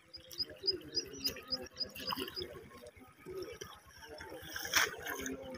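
Small birds chirping in a quick series of short high notes. Near the end comes a single splash of water.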